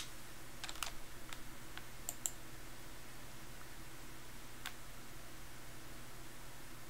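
A few faint, sharp clicks at a computer: a cluster in the first two and a half seconds and one more near five seconds, over a low steady hum.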